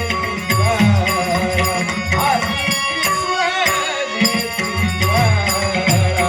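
Instrumental interlude of Dashavatar devotional folk music: a hand drum beating a steady rhythm with metallic cymbal strikes over steady held tones. The drumming pauses briefly about halfway through, then resumes.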